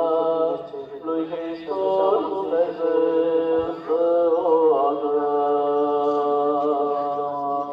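Eastern Orthodox liturgical chant: slow male voices hold long notes and glide from one note to the next over a steady, low held drone.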